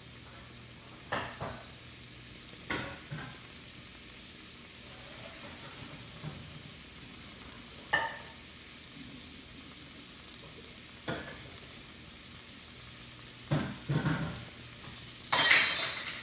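Shrimp sizzling steadily in a hot stainless steel frying pan. Scattered knocks and clanks of kitchenware sound now and then, and a louder rushing noise comes near the end.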